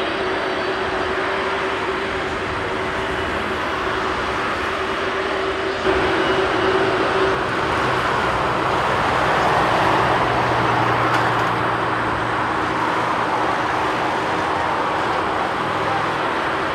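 Boeing 747-400's four jet engines at takeoff power as the airliner rolls down the runway and rotates: a steady rushing jet noise that grows louder about six seconds in.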